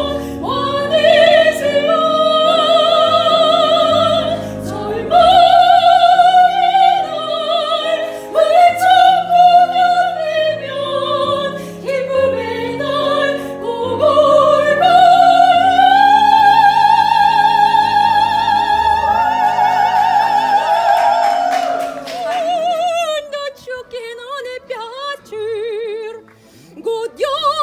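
A soprano sings an operatic aria with strong vibrato over an instrumental accompaniment, holding one long high note about two-thirds of the way through. The music breaks off abruptly, and lower, quieter singing with vibrato follows.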